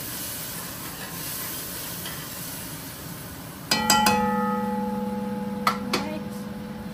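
Curry in the pot hissing and sizzling steadily just after water was added. A little past halfway, a metal spoon knocks against the aluminium pot a few times and the pot keeps ringing with a steady tone, with two more knocks near the end.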